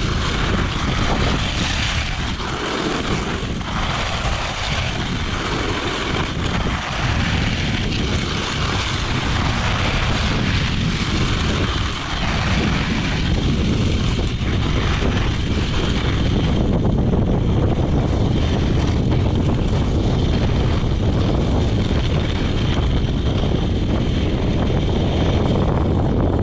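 Wind rushing over a moving action camera's microphone during a fast descent on snow skates, mixed with the scraping hiss of the skates carving the snow. The hiss swells every couple of seconds with the turns for the first half, then settles into a steadier rush.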